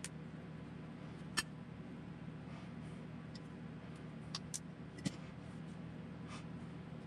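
Small RC kit parts and a hand tool clicking and tapping as they are handled on a workbench: about six sharp clicks, the loudest about a second and a half in and a cluster around the fifth second, over a steady low hum.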